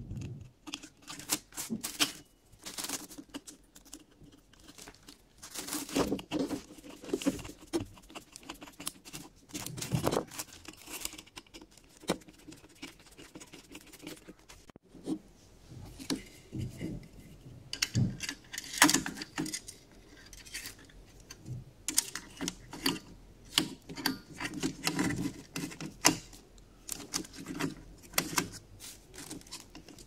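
Metal parts of a rotary telephone's ringer being handled and fitted onto its metal base plate by hand: irregular clicks, clinks and scrapes.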